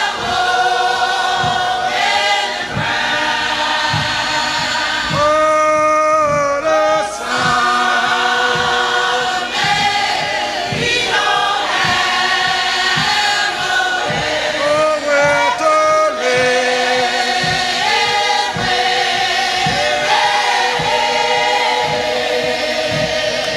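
A gospel song sung by a choir, its voices holding and sliding between notes over a slow, steady beat.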